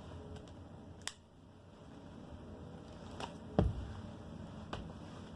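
Handling noise as items are picked up and set down: a few light clicks and taps, with one louder dull knock about three and a half seconds in.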